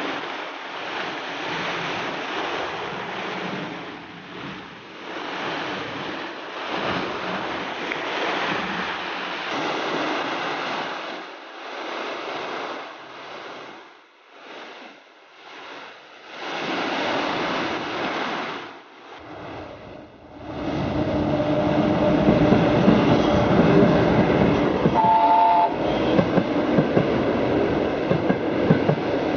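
A train passing close by: a rushing noise that swells and fades, then from about twenty seconds in a loud steady running sound, with a short horn blast near the end.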